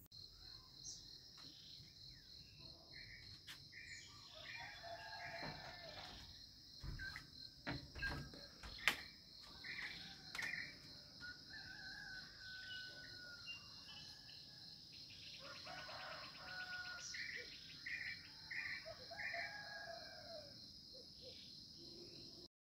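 Tropical forest ambience: a steady, high-pitched insect drone with a fast pulse, and birds calling in short chirps and whistles throughout. A few sharp knocks come about eight to nine seconds in.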